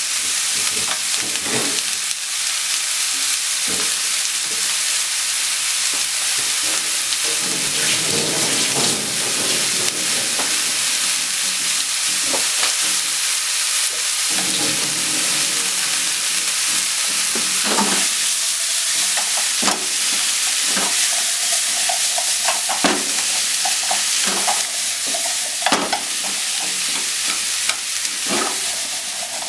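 Sausage and vegetables sizzling steadily in a hot frying pan, with a cooking utensil clicking and knocking against the pan as the stir-fry is stirred, more often in the second half.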